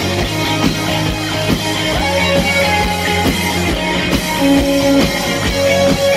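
Live rock band playing instrumental music through a PA: a drum kit with a steady beat under electric guitar and bass.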